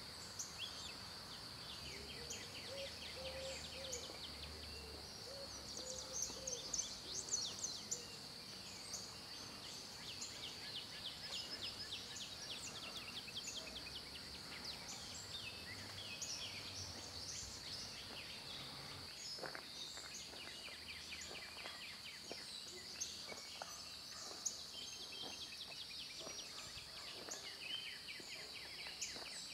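Outdoor park ambience: birds chirping and trilling on and off over a steady, high-pitched insect buzz, with a faint low rumble underneath.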